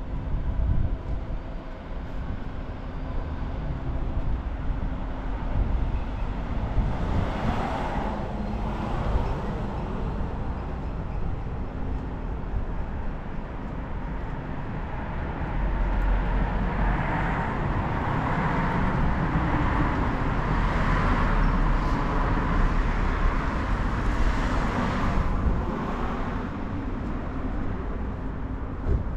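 Street traffic: cars driving along the road, with a steady low rumble. One car passes about eight seconds in, and a longer, louder stretch of passing traffic fills most of the second half.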